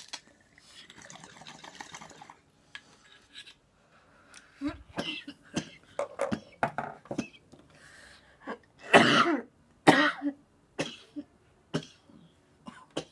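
Glass bong bubbling softly for a couple of seconds as a hit is drawn, then repeated coughing in short fits from the cannabis smoke, loudest about nine seconds in.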